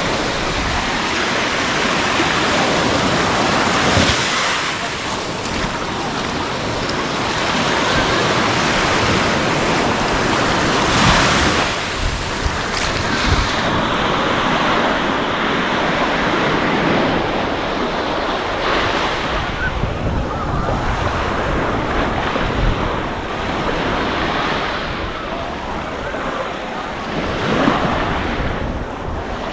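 Small waves washing onto a sandy beach, swelling and falling back every few seconds, with wind on the microphone.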